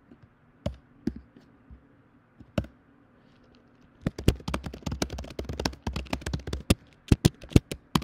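Typing on a computer keyboard. A few single key clicks come in the first seconds, then a fast run of keystrokes in the second half.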